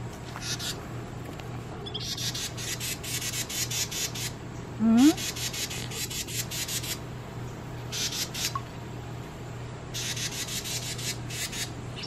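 Adult Carolina wren giving harsh, rapid chattering calls in several bursts of about two seconds each, calling near its fledgling. About five seconds in comes a short, louder rising voice sound like a hummed "hm?".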